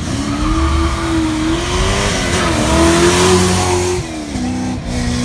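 Classic car's engine revving hard as it accelerates away, its pitch climbing and wavering with a loud exhaust rush that peaks about halfway through. About four seconds in the pitch drops sharply and settles to a lower steady note.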